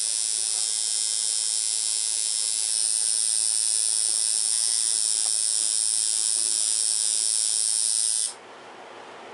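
Tattoo machine running with a steady high-pitched buzz, cutting off suddenly near the end.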